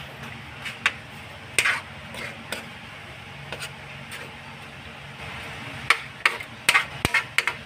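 A spoon stirring chicken pieces in broth in a cooking pot, knocking and scraping against the pot in scattered sharp clicks, which come thicker in the last couple of seconds.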